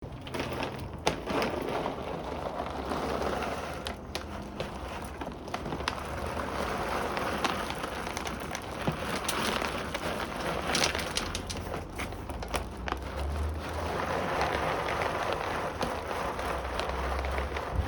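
Dry dog kibble crunching and rattling: a dense crackle with many irregular sharp clicks that swells and fades.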